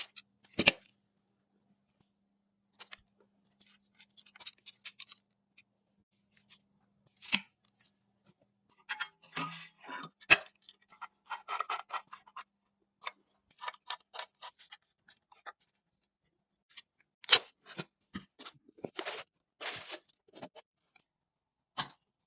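Hands working on computer parts during a PC assembly: scattered sharp clicks and taps, with denser scraping and rustling about nine to twelve seconds in and again near the end.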